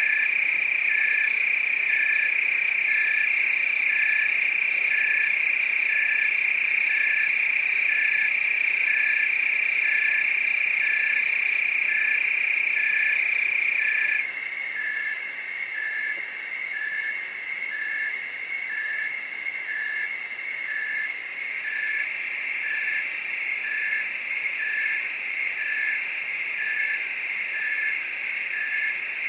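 Night chorus of crickets: a steady high-pitched trill, with a separate short chirp repeating about once a second. The loudest trill drops away about halfway through, leaving a softer trill and the regular chirps.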